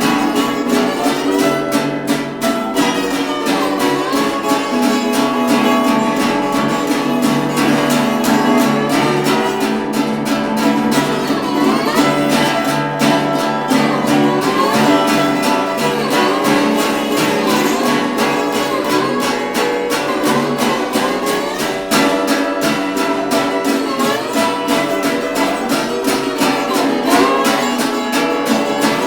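Acoustic blues played by a small band: strummed acoustic guitar and ukulele with a lead melody line that bends up and down in pitch.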